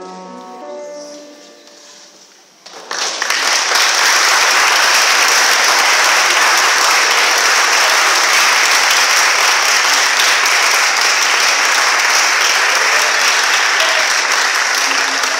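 A grand piano's last notes ring and fade. About three seconds in, an audience breaks into loud, steady applause.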